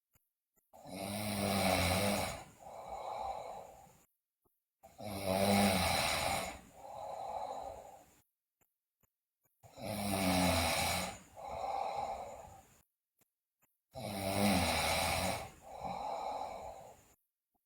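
A sleeping girl snoring loudly, four times about every four to five seconds: each a loud snore of about two seconds followed by a shorter, softer breath.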